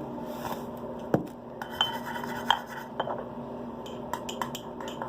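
Utensil clinking and scraping against a bowl in irregular, sharp taps, a few of them ringing briefly, as salt is added to liquid soap and stirred in. A steady low hum runs underneath.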